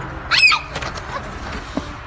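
A single brief, high-pitched animal call about half a second in.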